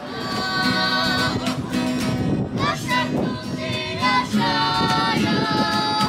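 A song with a singing voice begins abruptly, held, gliding sung notes over accompaniment.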